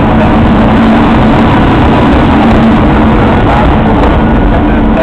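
MÁV class V43 (431) electric locomotive passing close by: a loud, steady hum with a low steady tone underneath.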